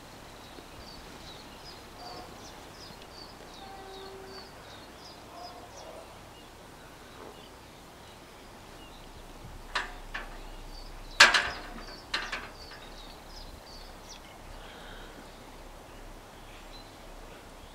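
Level-crossing barrier booms rising, with a cluster of sharp clunks about ten to twelve seconds in, the loudest just past the middle, as the booms reach their upright stops. Birds chirp quickly and high in the background, at the start and again just after the clunks.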